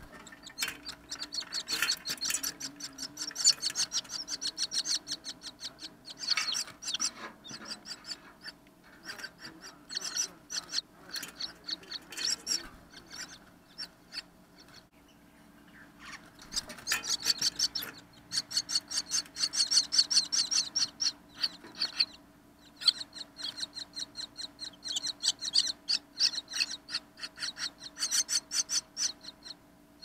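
Common myna nestlings begging: rapid, raspy, high chattering calls in bouts lasting a few seconds, separated by short pauses.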